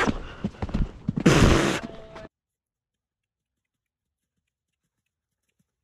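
A ridden horse's hoofbeats on arena footing, heard from the rider's helmet camera as uneven thuds and rustling, with a loud rush of noise about a second in. The sound cuts off abruptly about two seconds in and is followed by silence.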